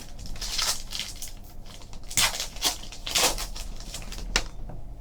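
Packs of 2015 Topps Finest baseball cards being handled between packs: a few short rustling, sliding swishes of cards and wrapper.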